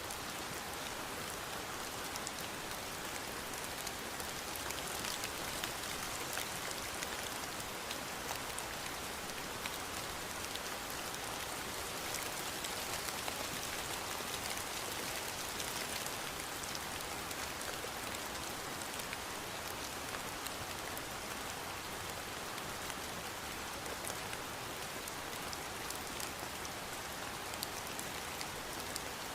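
Steady rain falling on a surface, a constant hiss with many fine drop patters.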